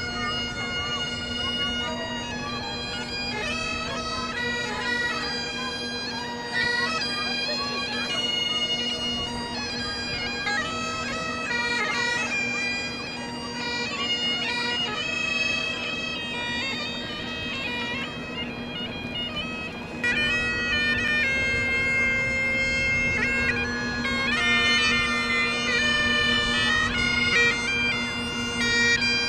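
Bagpipes playing a tune over a steady, unbroken drone, the melody notes changing quickly above it; the playing gets louder about two-thirds of the way through.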